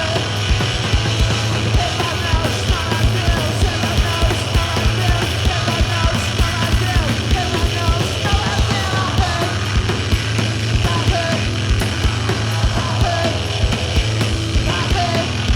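A live punk rock band playing, with fast, steady drumming under a continuous band sound.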